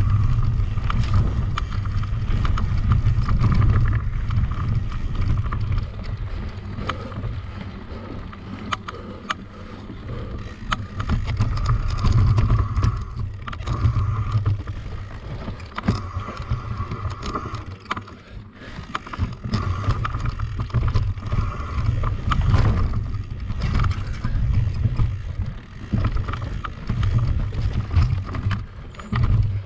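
Mountain bike ridden over a rough trail: wind rumbling on the microphone, the bike rattling and clicking over bumps, and a whirring that comes and goes.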